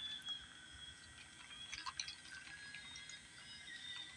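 Faint swishing of ice water with a few small clicks of ice against a plastic toy car held down in a plastic cup.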